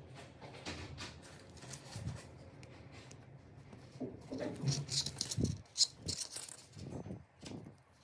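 Close handling noise of a clear plastic solderless LED strip clip connector and a flexible LED strip: small plastic clicks and rubbing. It gets busier and louder from about halfway, with one sharp click about three quarters of the way in.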